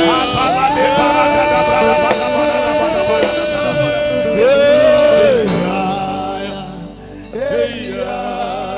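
Worship music: a voice singing long, held notes with a wavering vibrato over instrumental backing, growing softer about seven seconds in.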